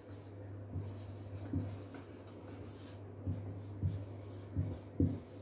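Felt-tip marker writing a word on a white board: irregular short scratches and taps of the tip as the letters are drawn, over a steady low hum.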